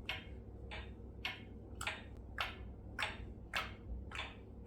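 A faint rhythmic hissing tick, short sharp bursts repeating steadily about twice a second.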